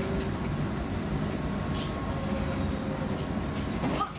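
Göteborg M31 tram running, heard from inside the car: a steady rumble of wheels on rail with a low hum underneath. About four seconds in, the noise briefly drops away.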